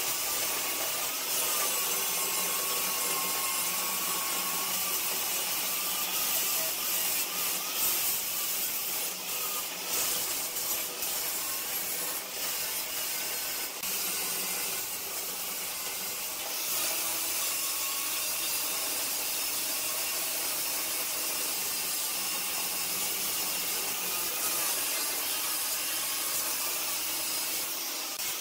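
Handheld angle grinder with an abrasive disc grinding steel at the welded joints of a square steel tube frame: a steady, gritty grinding noise with little letup.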